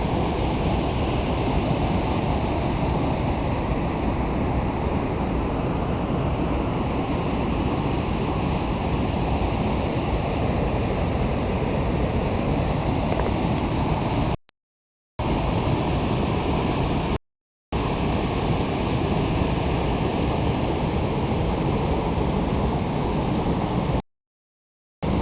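Waterfall: a steady, dense rush of falling water. The sound cuts out completely three times for under a second each, twice just past the middle and once near the end.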